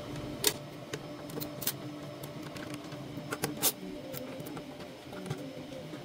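Hand-held Torx T15 screwdriver backing screws out of a jobsite fan's plastic base: scattered clicks and ticks, a few sharper than the rest, over a faint steady hum.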